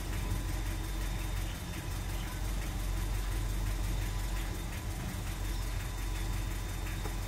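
VW 1.6 BSF four-cylinder petrol engine with a decat exhaust idling steadily while still warming up, heard from inside the car's cabin.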